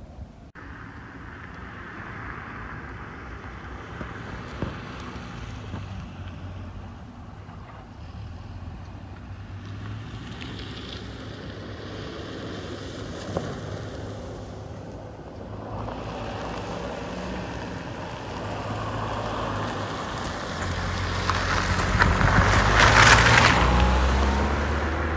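Ford Fiesta hatchback driving round a track, its engine running at modest speed, getting louder as it comes close and passes by near the end, the engine note rising as it goes.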